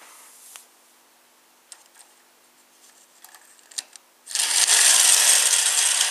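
Battery-powered toy circus train's small electric motor and plastic gears starting up and running with a loud, steady mechanical whirr about four seconds in. Before that, a few faint clicks as the locomotive is handled.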